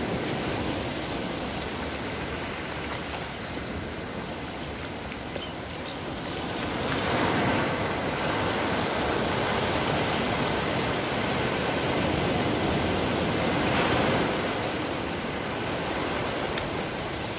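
Small ocean surf breaking and washing up a sandy beach: a steady wash of noise that swells about seven seconds in and again around fourteen seconds.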